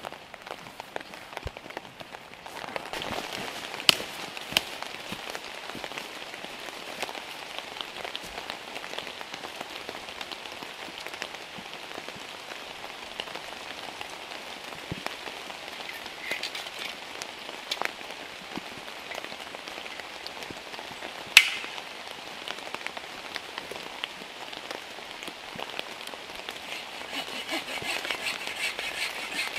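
Steady heavy rain pattering on a camping tarp, with many single drops striking it and two sharper taps, about four seconds in and about twenty-one seconds in. The rain gets a little louder a couple of seconds in and again near the end.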